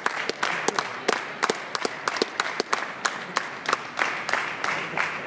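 Scattered applause from a small audience: separate handclaps, several a second, keeping up unevenly.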